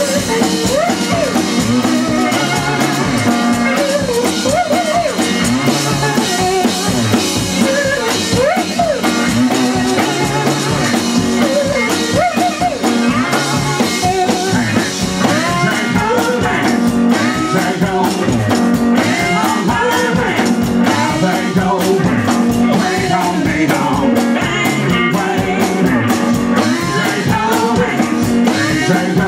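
Country-blues band playing live: an instrumental stretch of amplified guitar with bending notes over a steady drum beat.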